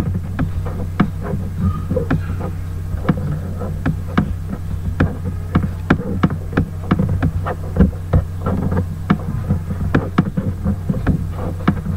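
Steady low electrical hum, like mains hum picked up by the microphone, with short sharp clicks several times a second throughout.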